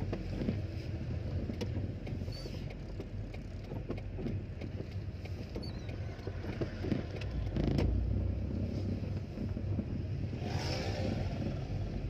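Car driving slowly on a town street, heard from inside the cabin: a steady low engine and road rumble with small creaks and clicks. A brief pitched sound rises out of it near the end.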